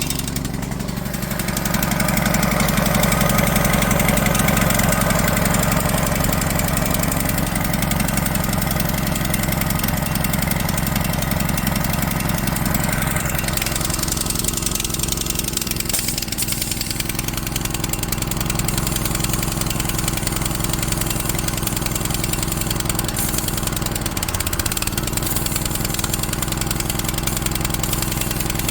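Gasoline pressure washer engine running steadily after a pull start, its sound shifting a little about halfway through.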